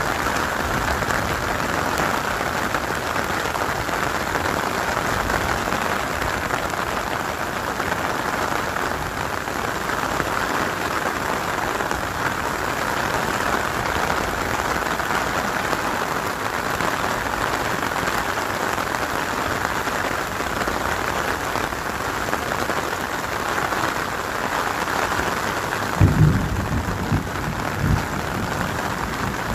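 Heavy rain falling steadily, heard from under a clear plastic umbrella as the drops hit its canopy. Two short low thumps come near the end, the second smaller than the first.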